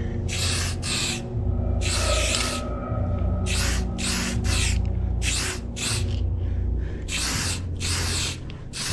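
Aerosol spray-paint can hissing in a quick series of short spurts, about a dozen, one of them longer about two seconds in, as lettering is sprayed onto a wall.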